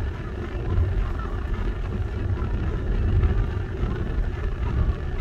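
Steady low rumble of engine and road noise from a moving car, with no distinct events.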